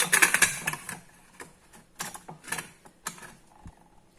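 Stainless-steel pressure cooker lid being set onto the pot and twisted shut: a rattling clatter of metal on metal at first, then a few separate scrapes and clicks as it seats and locks.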